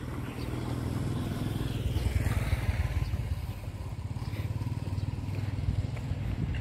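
A motorbike going by on the street, its engine a low rumble that builds over the first couple of seconds and then holds.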